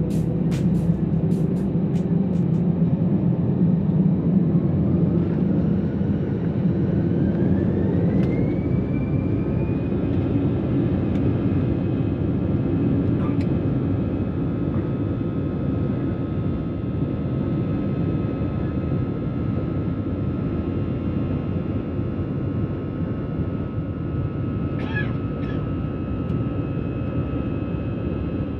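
Airbus A320's twin jet engines heard from inside the cabin, spooling up to takeoff thrust: a whine rises in pitch about six to ten seconds in and then holds steady over a heavy rumble as the aircraft starts its takeoff roll.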